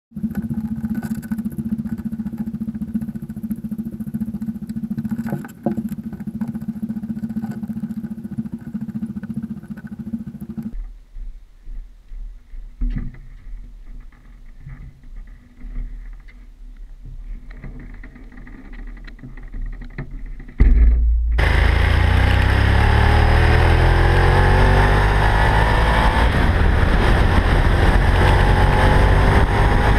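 A motorcycle engine comes in suddenly about two-thirds of the way through and is the loudest sound, pulling hard with its pitch rising as the bike speeds up. Before it there is a steady low rumble for about the first third, then a quieter stretch with a few knocks.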